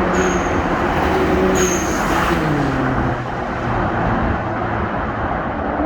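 A performance car's engine and exhaust running loudly under throttle. The engine note falls about two to three seconds in, then climbs again near the end.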